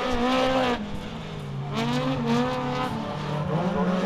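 Rallycross hatchback race cars' engines revving hard as the pack passes through a bend, the pitch rising and falling with throttle and gear changes. The engines fade about a second in and swell again as more cars come through.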